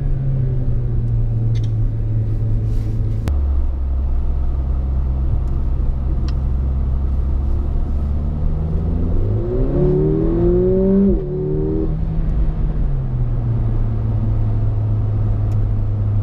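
Mercedes-AMG A45's turbocharged four-cylinder engine heard from inside the cabin at track speed. The engine note drops in pitch about three seconds in, rises as the car accelerates from about nine seconds in, falls sharply about eleven seconds in, then settles to a steady drone.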